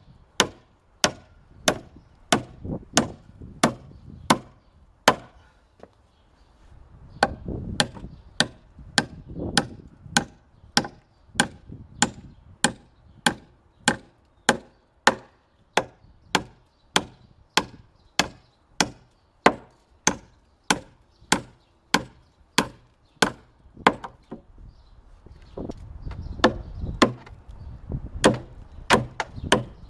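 Hammer blows on wood in a steady rhythm, about two strikes a second, pausing briefly twice.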